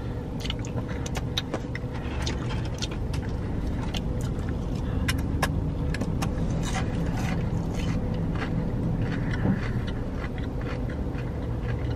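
Steady low hum of a parked car's idling engine and cabin fan, heard from inside the car. Over it come many small sharp clicks and crinkles of paper food wrappers being handled, and of eating with the fingers.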